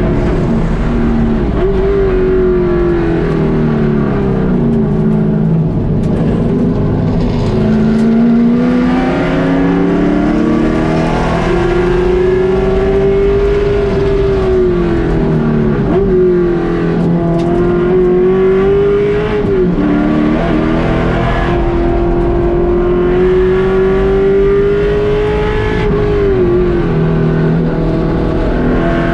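Race car engine at full track pace, heard from inside the stripped cockpit. Its pitch climbs steadily under acceleration and drops sharply a few times as the driver shifts or lifts, over a constant rush of road and wind noise.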